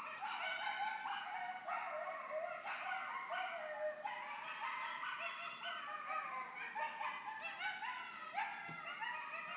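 A pack of coyotes yipping and howling together in many overlapping calls that slide up and down in pitch.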